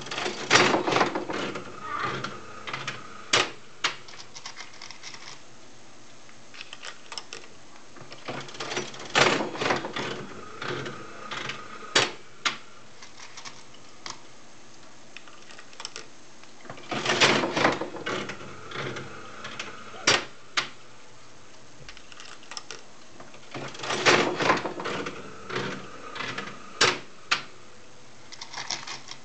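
A 1966 Sega Continental one-armed bandit being played four times. Each pull of the handle sets off a second or so of mechanical whirring and clatter as the reels spin, then a few sharp clunks as the reels stop one after another.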